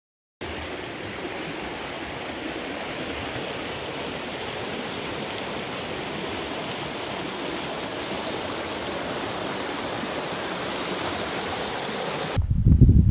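Rushing mountain creek: a steady roar of water tumbling over rocks and whitewater, starting abruptly after a brief silence. Near the end it cuts to a louder, low buffeting rumble.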